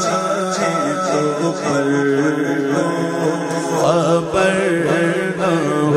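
A man's solo voice singing an Urdu naat through a microphone, holding a long ornamented phrase whose pitch wavers and glides, over a steady low drone.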